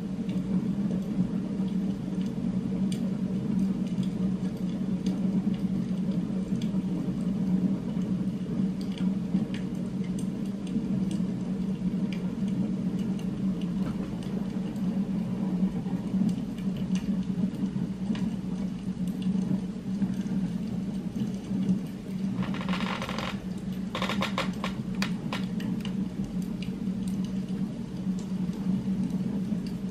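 Steady low droning hum from an added ambient background-noise track, with a short burst of noise about three quarters of the way through.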